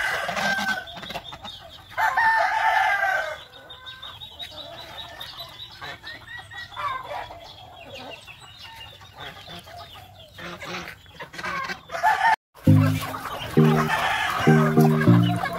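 Free-ranging chickens clucking, with one long rooster crow about two seconds in. After a sudden cut near the end, background music with a repeating bass line comes in under the clucking.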